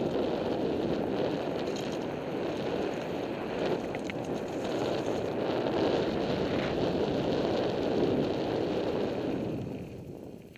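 Wind buffeting the microphone of a camera riding fast down a dirt and gravel trail, with tyre and trail noise underneath and a few small clicks. It fades out near the end.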